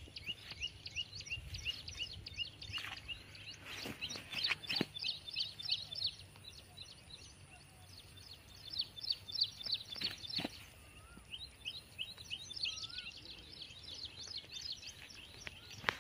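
Small birds chirping in a rapid, continuous chorus of short high calls, with a few sharp clicks.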